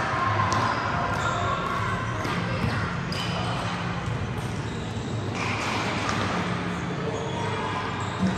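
Basketballs bouncing on a gym floor during practice, with scattered short, sharp thuds and brief high squeaks of sneakers, in a large echoing gym.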